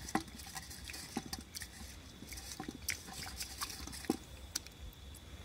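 Rice being washed by hand in water in a small stainless steel pot: faint, irregular small splashes and clicks as the hand stirs the grains.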